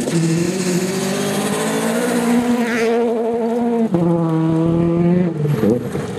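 Rally car engines running at high revs on a gravel stage. In the first part one car's engine is held at a steady high pitch over a hiss of gravel. After an abrupt change about four seconds in, a second car is heard, and its revs dip and pick up again near the end.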